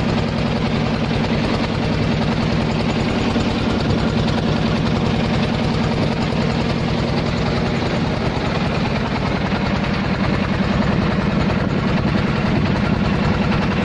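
Motor of a small wooden passenger boat running steadily under way, with a fast, even beat.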